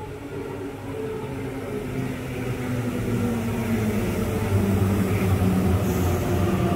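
Electric suburban train approaching the station platform, growing steadily louder, with its motor tones sliding down in pitch as it slows.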